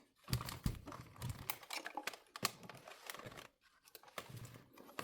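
Hands handling small plastic parts and cables: irregular crinkling, scratching and light clicks.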